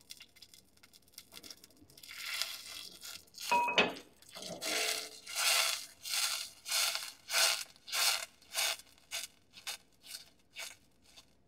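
Stainless saucepan of hot melted butter and water being moved back and forth on a gas-range grate: a rhythmic run of rasping, swishing strokes, about two a second, getting quicker and shorter toward the end. One ringing metal clink about three and a half seconds in.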